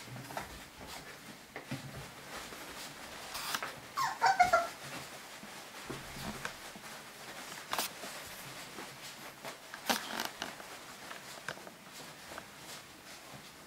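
Yorkiepoo puppies scrabbling and rustling through shredded-paper bedding as they play, with scattered small clicks. About four seconds in, a puppy gives a quick run of high, falling yelps.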